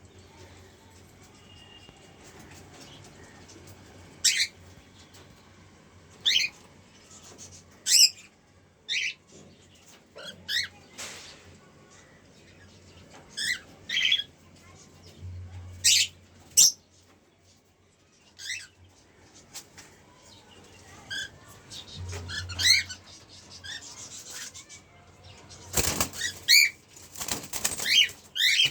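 A pair of pet cockatiels giving short, high chirps every second or few seconds, coming thicker near the end. A few brief noisy flutters of wings are mixed in, about 11 seconds in and again near the end.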